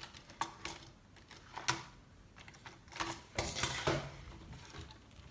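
Plastic LEGO pieces clicking and knocking as a small LEGO model and car are handled and moved on a wooden table. There are scattered sharp clicks, busier from about three seconds in.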